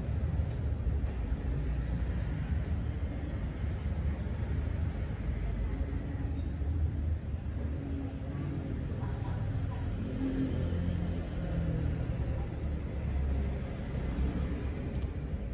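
Steady low background rumble with no distinct events, holding an even level throughout.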